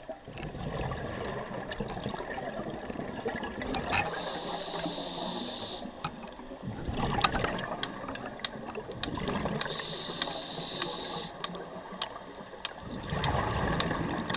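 Scuba diver breathing through a regulator underwater: three bubbling exhalations, each followed by a hissing inhalation, in a slow steady cycle. Scattered sharp clicks throughout.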